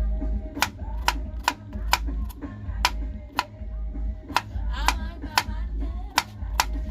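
Music playing through a portable speaker, with heavy bass and a sharp percussion hit about twice a second.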